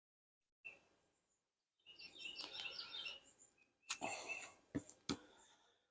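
Small birds chirping in short quick notes, then a rustle of handling noise and two sharp knocks close together near the end.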